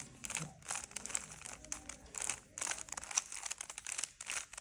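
Rubik's cube layers being twisted by hand in quick succession, a run of light, irregular plastic clicks and rattles.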